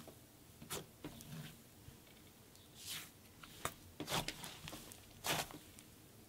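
Light, fluffy cloud dough slime being stretched, squeezed and pressed by hand, giving scattered short, soft crackles and sticky squishes.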